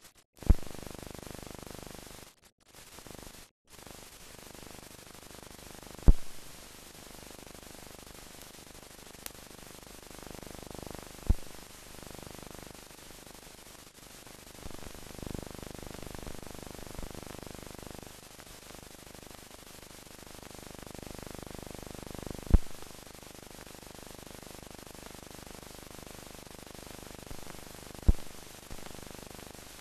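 Steady hiss and static of a silent film transfer with no soundtrack, broken by five sharp pops spread through it.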